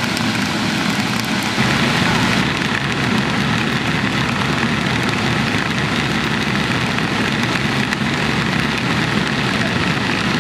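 Electric inflation blower running steadily: a loud, even rush of air being forced into a giant inflatable as it fills.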